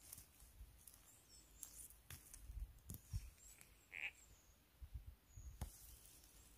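Near silence: faint rustles, clicks and low thumps of someone moving about the forest floor while picking mushrooms, with a single short high chirp about four seconds in.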